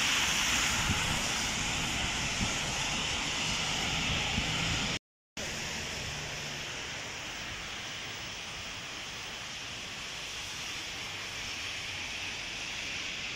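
Heavy rain falling, a steady hiss with no let-up. It cuts out for a split second about five seconds in, then carries on a little quieter.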